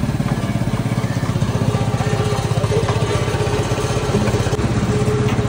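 A small engine idling steadily close by, with a fast, even putter.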